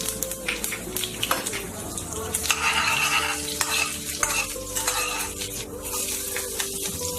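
A spoon stirring and scraping in a pan while food fries and sizzles, with repeated clicks of the utensil against the pan. The sizzle grows louder for about a second and a half near the middle.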